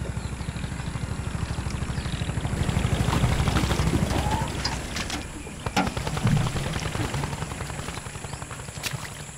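Tractor engine chugging in a fast, even beat as the tractor works through paddy mud. It grows louder to about three seconds in and then slowly fades, with a few sharp clicks near the end.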